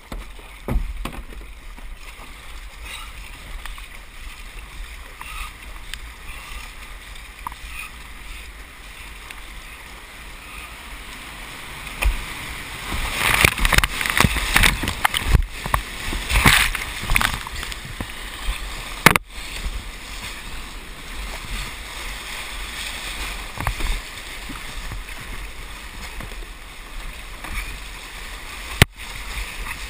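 Whitewater rushing around a slalom kayak with splashing paddle strokes, heard close to the water from the boat's deck. The rush grows louder and splashier for a few seconds about halfway through as the boat runs the rapids, and the sound cuts out for an instant twice.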